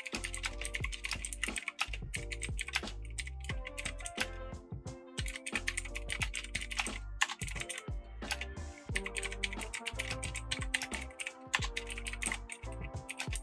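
Fast typing on a mechanical keyboard with Outemu Blue clicky switches, a dense stream of key clicks. Background music with a steady bass runs underneath.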